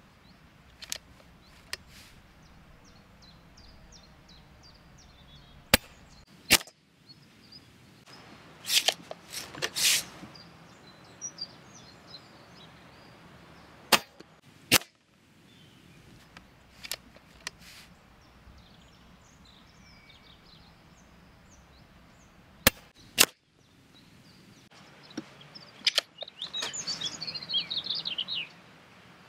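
Shots from a silenced Daystate Wolverine R .177 pre-charged air rifle, fitted with a Daystate Airstream 6 Reflex silencer. Three times a short, sharp crack is followed by a second click under a second later, with more clicks between shots. Birds chirp faintly in the background, and there is a rustling passage near the end.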